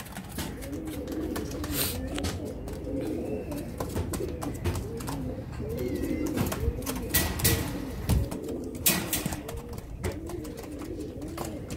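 Several Gulwy domestic pigeons cooing over and over, each coo a short rising-and-falling low call. Scattered light clicks and a few brief louder rustles come through between the coos.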